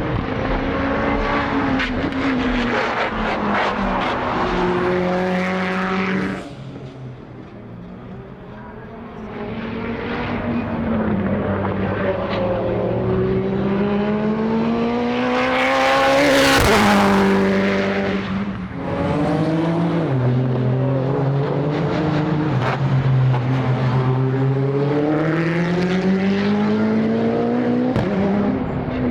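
Modified time-attack race cars running hard on track. Engine pitch climbs through each gear and steps down at every shift. One car passes loudest a little past halfway, its pitch falling as it goes by.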